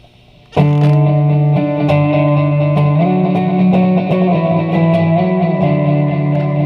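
Electric guitar played through a Guyatone MD3 digital delay pedal: loud chords start about half a second in and ring on, layered with delay repeats, with the chord changing around three seconds in and again near six seconds.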